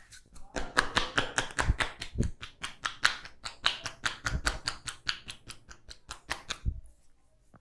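Rapid run of sharp taps and cracks, about seven a second, from a masseur's hands working the head and hair in an Indian head massage, with a few duller thumps among them. It stops shortly before the end.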